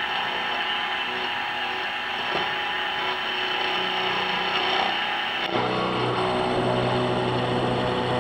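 Sieg SX2P mini mill's brushless spindle motor running steadily, turning an end mill over a steel bar, with a steady whine. About five and a half seconds in the sound changes abruptly to a fuller, deeper hum.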